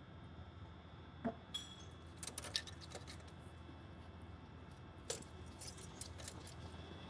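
Faint metallic clinks and clicks as the clamp is worked off the intercooler boot at the turbo: a few sharp ticks between one and two and a half seconds in, and another about five seconds in.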